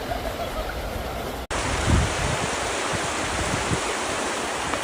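Rushing water of a creek running high after rain: a steady, loud hiss that cuts in abruptly after a brief dropout about one and a half seconds in, with quieter wind noise on the microphone before it.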